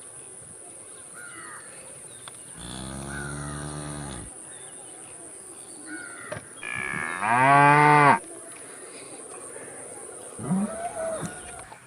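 Cows mooing: a moderate moo about three seconds in, a loud drawn-out moo around seven seconds in, and a short call near the end. A faint steady high-pitched tone runs underneath.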